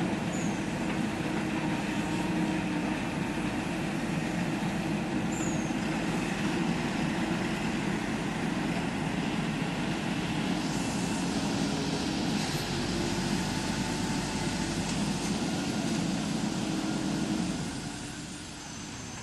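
Diesel engine of a JCB 3DX backhoe loader running steadily at working revs, dropping in level near the end.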